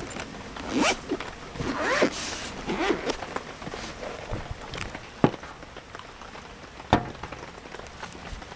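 Zipper on a hard-shell zippered carrying case being pulled open around the case in several quick strokes. This is followed by two sharp knocks, about five and seven seconds in, as the case is opened and handled.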